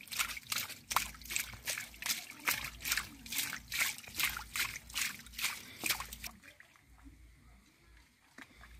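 A hand scooping and flinging wet, watery mud out of a hole: quick repeated splats and sloshes, about two or three a second, that stop about six seconds in and leave only faint squelching.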